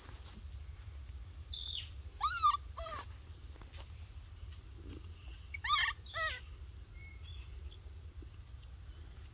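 Baby macaque giving short, high, arched calls, two pairs about three seconds apart, with a faint bird chirp just before the first pair.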